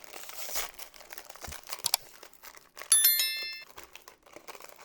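Packaging of a trading-card tournament kit crinkling and tearing as it is opened by hand. About three seconds in, a bright bell-like ding rings out and fades within a second; it is the loudest sound.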